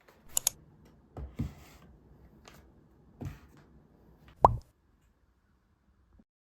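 Small skincare containers being handled and set down on a surface: a sharp click, a few soft knocks, and a louder hollow plop about four and a half seconds in.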